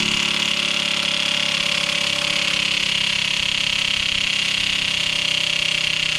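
DeWalt DCF899 cordless impact wrench hammering continuously on a crankshaft pulley bolt, a steady rapid rattle held on the trigger. The bolt is not coming loose.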